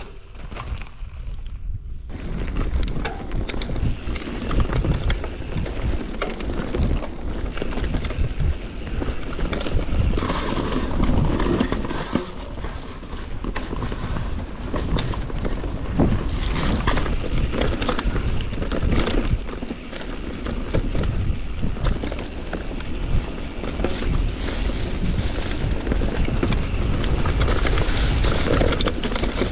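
Mountain bike riding fast down a rough, rooty trail: constant wind buffeting on the action-camera microphone, tyre rumble and many sharp knocks and rattles from the bike over roots and rocks. The noise is quieter for about the first two seconds, then jumps up.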